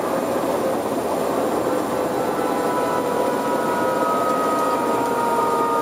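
Helicopter heard from on board as it comes down to land on glacier snow: a steady rushing of rotor and engine noise with a few thin, high whining tones over it.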